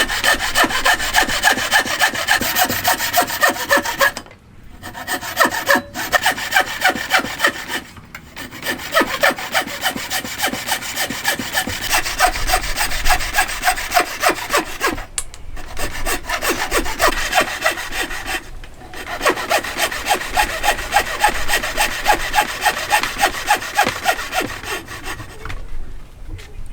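Hand saw cutting wood in quick, regular back-and-forth strokes, stopping briefly a few times.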